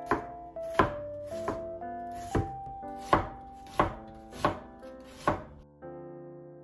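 Kitchen knife thinly slicing an onion on a wooden cutting board: about eight sharp knocks of the blade on the board, roughly one every 0.7 s, stopping shortly before the end. Light background music with piano notes underneath.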